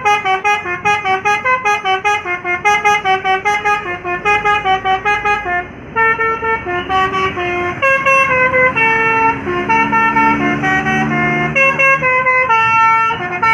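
Bus telolet horn, an Indonesian multi-tone musical air horn, playing a tune: quick short notes for the first half, then slower, longer held notes after a brief break.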